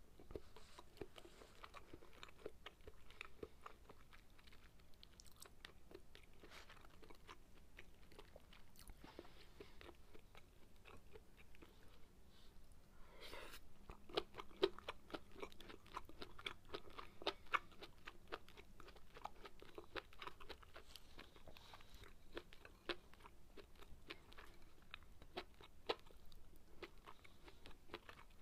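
Close-miked chewing of sukiyaki and rice: faint, wet mouth clicks and smacks, busier and louder in the second half.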